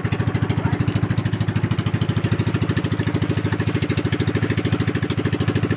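Small boat's engine running steadily as the boat gets underway, a rapid even chugging.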